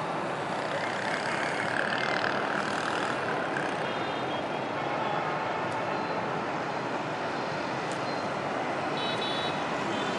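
Steady road traffic noise, with a couple of brief high-pitched beeps about four seconds in and again near the end.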